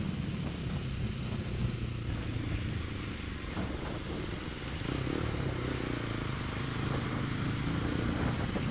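Bajaj Pulsar NS200 single-cylinder engine running steadily at cruising speed, with road and wind noise, growing a little louder about five seconds in.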